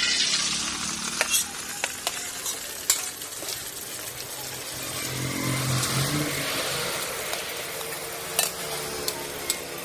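A whole fish frying in hot oil in an aluminium wok, the oil sizzling steadily around it, with a few sharp clicks of a metal knife and spatula touching the wok.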